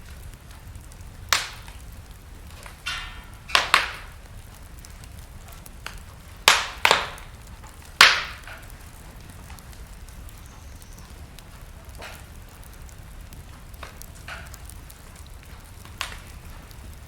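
Wood fire burning in a fireplace: a steady low rumble with sharp crackles and pops. Several loud pops come in the first half, then fewer, fainter crackles.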